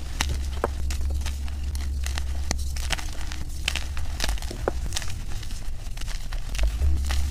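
Soft white gym chalk blocks and powder squeezed and crumbled in bare hands: a run of soft, crisp crunches and crackles, over a steady low hum.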